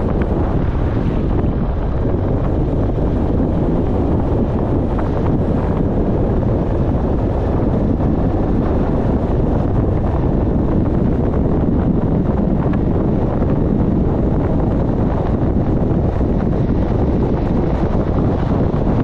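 Steady, loud wind noise buffeting the microphone, a continuous low rumble with no let-up.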